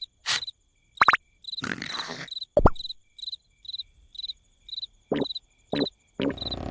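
Cricket chirping steadily, about two short high chirps a second, with a few brief louder noises in between.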